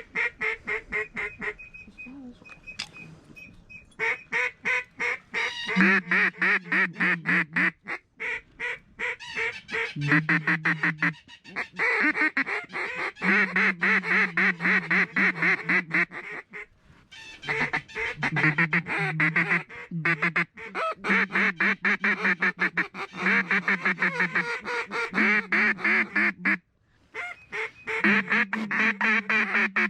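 A duck call blown in long runs of rapid quacking notes on a steady pitch, breaking off briefly a few times. It is calling to ducks circling the decoys.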